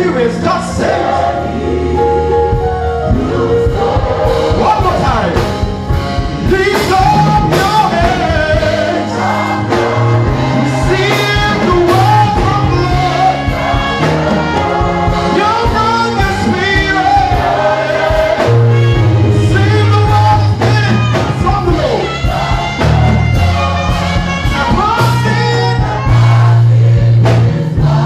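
Live gospel music: a man sings lead into a microphone over instrumental accompaniment with a steady beat and sustained bass notes.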